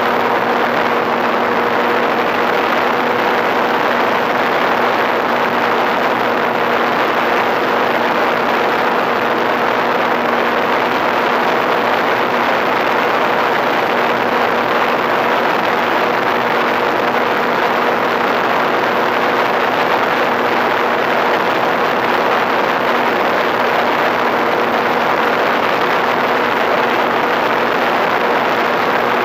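Electric motor and propeller of an FPV Raptor radio-controlled plane running at a constant steady pitch in flight, mixed with heavy wind rush over the onboard camera.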